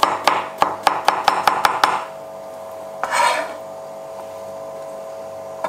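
Chef's knife chopping pickled cucumbers on a cutting board: quick knocks, about six a second, for the first two seconds. About three seconds in there is one short scrape, as the chopped pieces are swept up on the blade.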